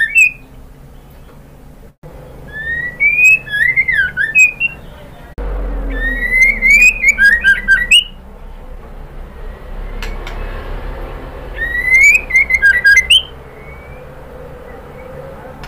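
Female white-rumped shama singing three loud phrases, about two, five and twelve seconds in. Each opens on a rising whistle and breaks into a quick run of sharp, falling notes and clicks. This is the call used to stir caged males into song, under a low hum that grows louder about five seconds in.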